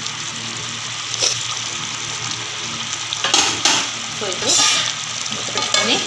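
Thick fish curry simmering and sizzling in an aluminium pot, with a spoon stirring through it. In the second half come a few louder metal scrapes and clinks from the spoon and the aluminium lid going onto the pot.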